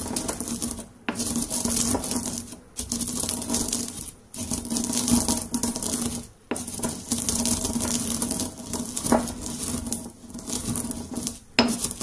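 Granite pestle crushing and grinding roasted coffee beans in a granite mortar: a continuous gritty crunching and scraping of stone on beans, broken by a few brief pauses.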